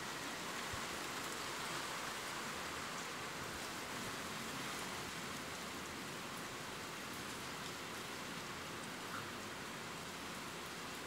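Steady rain falling: an even hiss of many drops that holds at one level throughout.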